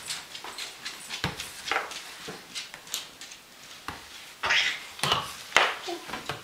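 A crawling baby's short breathy grunts and little vocal noises, coming in irregular bursts, with a few light knocks of hands on the hardwood floor.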